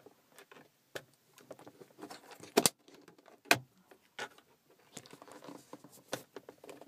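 Irregular plastic clicks, knocks and light scraping as an E46 BMW 3 Series interior roof lamp assembly is worked loose from its clips, with two sharper snaps about two and a half and three and a half seconds in.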